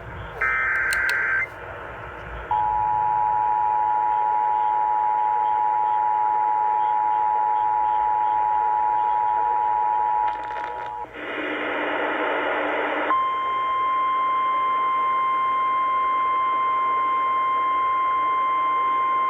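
Emergency Alert System tones over radio: the last screeching SAME header data burst, then the two-tone EAS attention signal held for about eight seconds. After a two-second burst of harsh noise, the single steady tone of a NOAA Weather Radio warning alarm comes on.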